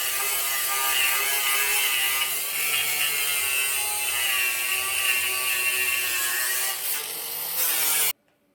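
TIG welding arc on aluminum buzzing steadily with a hiss, cutting off abruptly about eight seconds in.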